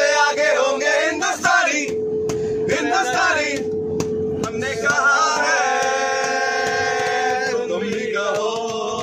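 A group of men singing together loudly, with a long held note in the middle, over a steady low hum.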